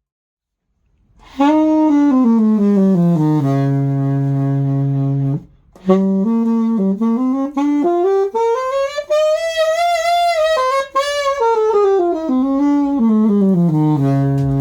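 Selmer Mark VII alto saxophone, freshly overhauled, played solo. A phrase falls to a long held low note, and after a short break a second phrase climbs in a smooth arc and sweeps back down to the low note.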